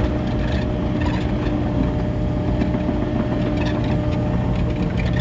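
Kubota KX080 excavator's diesel engine running steadily, heard from the cab with the windows open.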